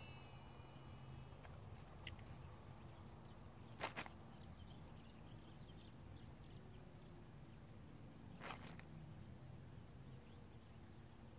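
Near silence: faint outdoor ambience with a low steady hum and a few soft clicks, the clearest a double click about four seconds in.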